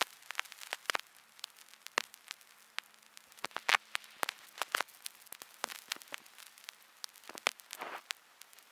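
Irregular sharp crackles and pops, several a second, over a faint hiss.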